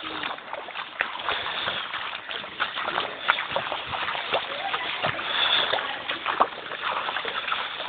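Floodwater splashing and sloshing in irregular strokes.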